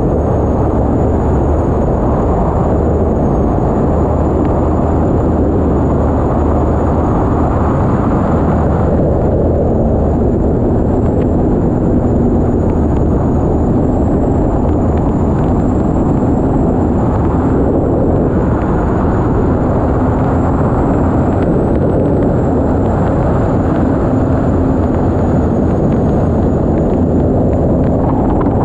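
Unlimited hydroplane's Lycoming T55 turbine engine running at racing speed, heard from a camera on the boat's deck: a loud, steady rush of engine, wind and water noise with a thin, wavering high whine.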